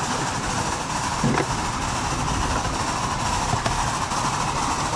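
Ride-on 10¼-inch gauge miniature steam locomotive, a scale Merchant Navy class Pacific, running steadily while it hauls a long train of passenger coaches, with a few faint clicks from the wheels on the track.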